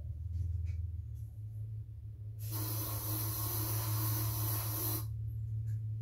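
A steady, even hiss lasting about two and a half seconds that starts and stops abruptly, over a constant low hum.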